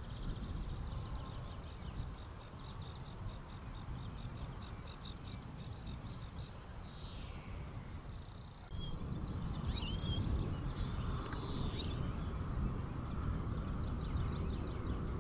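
Outdoor nature ambience: a quick, even series of high chirps, then a few short whistling bird calls, over a steady low wind rumble. The sound gets louder about nine seconds in, and the fast chirping comes back near the end.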